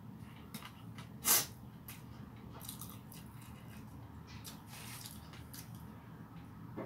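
Close-up mouth sounds of someone eating rice and fried chicken by hand: moist chewing and small smacking clicks, with one short, louder noise about a second in.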